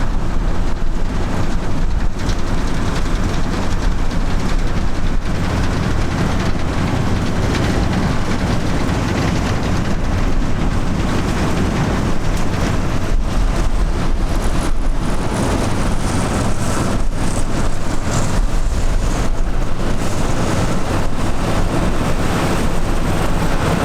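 Tractor engine running steadily and heavily, with a low even throb.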